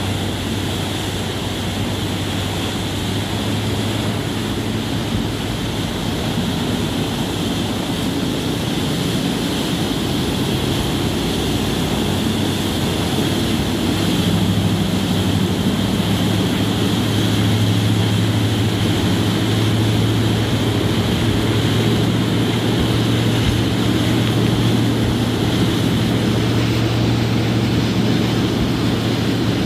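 SeaStreak high-speed ferry's waterjet drives running at speed: a steady low engine drone over the rushing, hissing spray of the jet wake. The drone grows louder about halfway through.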